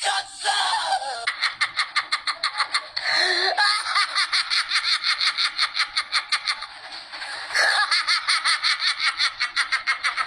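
Men doing exaggerated 'evil laughs': a fast, high-pitched cackle of about eight pulses a second, in a few long runs with short breaks between them.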